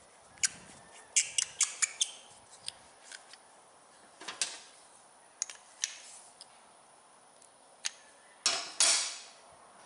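Small metal clicks and taps as a fuel shutoff solenoid is threaded into a carburetor's float bowl and snugged with an open-end wrench, with a cluster of clicks about a second in and a short scraping burst near the end.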